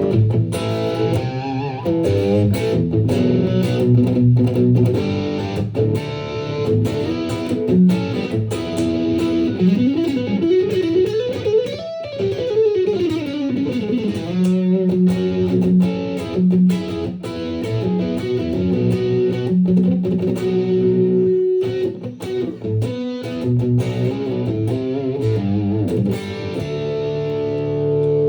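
Electric guitar, a Gibson Les Paul Tribute with Lollar P90 pickups, played through a UAD Enigmatic Dumble-style amp pedal and recorded direct, with no room sound. It plays a line of held notes and chords, with one note sliding up and back down about halfway through.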